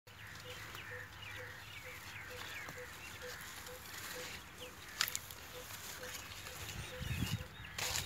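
Small birds chirping and calling in short, repeated notes, over a faint low tone that pulses evenly about twice a second. A sharp click comes about five seconds in, and a brief low rumble near the end.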